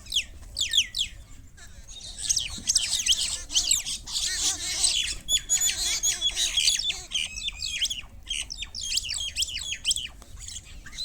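A group of birds, common mynas among them, chattering and squawking in many quick overlapping calls, busiest for a few seconds starting about two seconds in.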